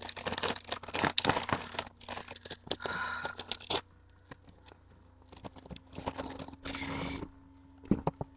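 Packaging being handled and torn open: crinkling and tearing of wrapping, with scattered clicks. It comes in two bursts, a longer one at the start and a shorter one after a pause, then a single sharp knock near the end.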